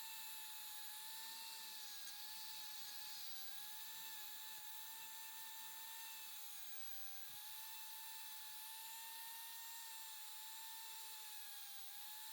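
Rotary tool spinning a bristle brush bit on a silver pendant: a steady high whine that wavers slightly in pitch, over a faint hiss.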